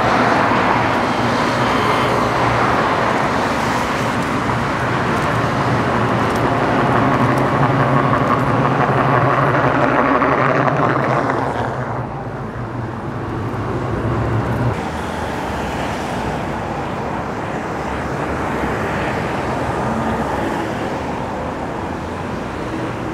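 Downtown road traffic on rain-wet streets: cars passing with tyre hiss on the wet pavement, loudest for the first twelve seconds and then easing off. A low engine hum runs underneath and stops about fifteen seconds in.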